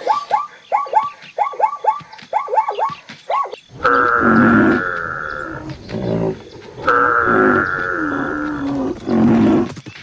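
Animal call sound effects: a quick string of short falling squeals, then two long elephant trumpet calls.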